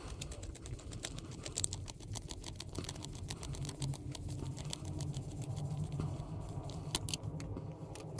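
Precision screwdriver turning a small screw into the plastic chassis of an Axial SCX24 crawler, with the parts handled in the hand: a run of small, irregular clicks and ticks over a steady low hum.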